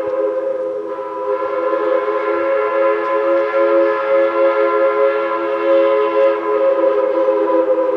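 Steam locomotive whistle blown in one long, steady blast, several notes sounding at once as a chord.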